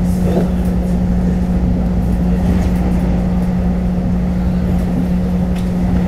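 Taiwan Railways EMU500 electric commuter train running at a steady speed, heard from inside the car: a constant low hum over the rumble of the wheels on the track.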